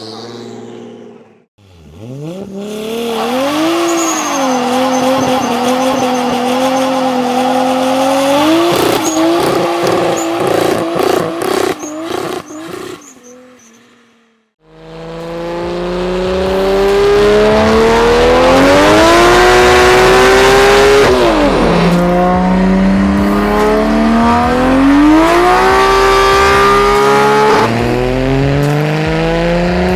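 Toyota Supra's 2JZ turbocharged straight-six revving: it climbs, holds fairly steady with a rapid crackle of pops, then fades out about halfway. Then the engine pulls hard again, its pitch climbing, dropping sharply, and climbing again.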